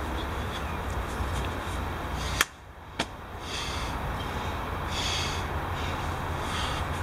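A man breathing hard from the exertion of doing burpees, with a breath every second or two, over a steady low rumble. Near the middle there are two sharp clicks about half a second apart, and the background drops out briefly between them.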